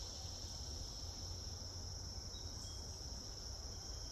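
Insects trilling in one steady, high-pitched, unbroken chorus, over a low rumble.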